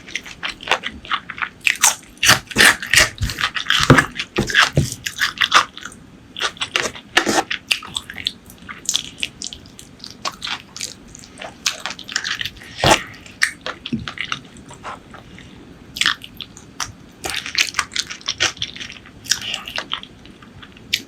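Close-miked eating: a person biting, crunching and chewing food with wet, crackling mouth sounds in irregular bursts, busiest early on and again near the end, with a quieter pause in between.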